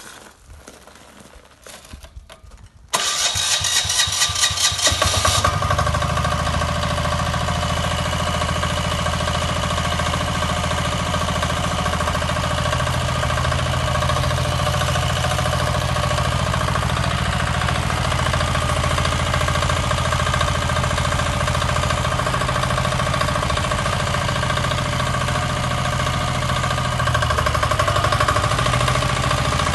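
Single-cylinder diesel engine of a Motor Sich walk-behind tractor starting: about 3 s in it clatters into life over a couple of seconds of cranking and catching, then runs steadily. Near the end the engine speed rises a little.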